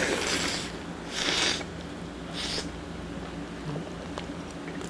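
A man eating a large bite of eggs Benedict: chewing with three short, breathy huffs about a second apart, the first at the start.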